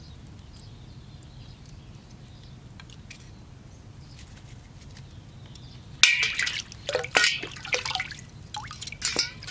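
Water splashing and sloshing as an opened sea urchin is rinsed by hand in a stainless steel bowl of water, starting with a sudden splash about six seconds in and going on in uneven sloshes. Before that, only a few faint clicks.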